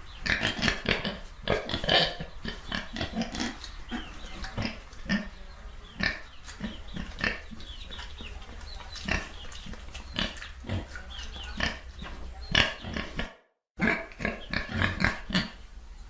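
Pigs grunting and oinking, many short grunts in quick succession over a steady low hum. The sound cuts out to silence for about half a second near the end, then the grunting resumes.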